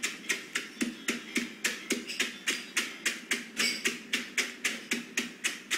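A stick pounding dry food into crumbs inside a zip-top plastic bag on a table: a steady run of sharp knocks, about four a second.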